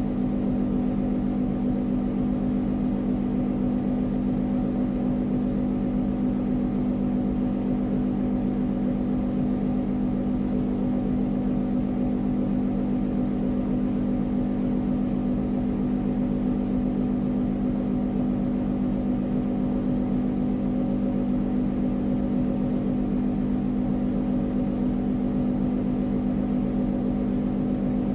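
A steady machine hum at one low, fixed pitch that does not change.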